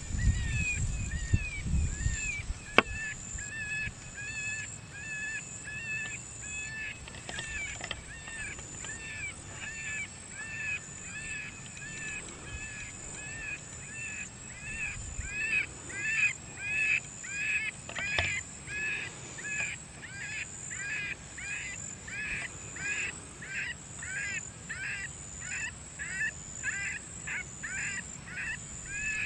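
Predator call sounding a long run of short, wavering, high-pitched distress cries, about two a second, louder from about halfway through. Wind rumbles on the microphone in the first two seconds.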